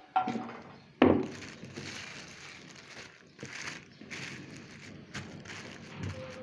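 Polythene sheet rustling and crinkling as it is folded over and pressed onto a sesame-and-jaggery mixture on a wooden board, with two sharp knocks near the start, the second, about a second in, the loudest.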